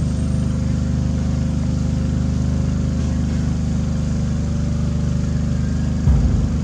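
Steady low drone of an engine running at idle, with a brief low thump about six seconds in.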